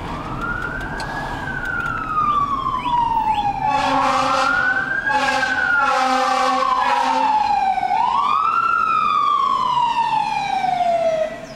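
Emergency vehicle siren wailing, rising quickly and falling slowly in pitch three times, with a lower horn sounding in a few short blasts in the middle; it cuts off suddenly near the end.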